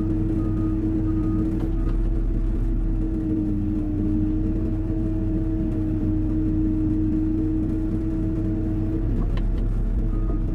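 Hyundai 140 wheeled excavator's diesel engine running steadily under working load. A short repeating beep sounds during the first second and a half.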